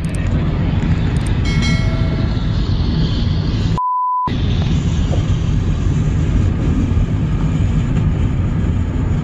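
Loud, steady wind and road noise of a car moving at freeway speed, heavy in the low rumble. A short horn blast sounds about a second and a half in, and about four seconds in a censor bleep, a pure beep with everything else cut out, masks a word for half a second.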